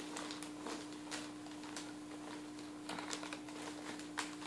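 Foil gift wrap crinkling and a boxed present rustling as it is slid out of its wrapping, with scattered soft irregular clicks, over a faint steady hum.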